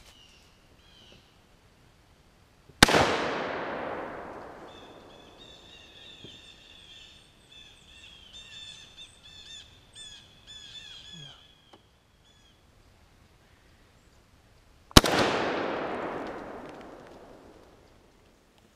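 Two gunshots about twelve seconds apart, each a sharp crack followed by a long echo that fades over about three seconds. Between them a bird calls repeatedly in short notes.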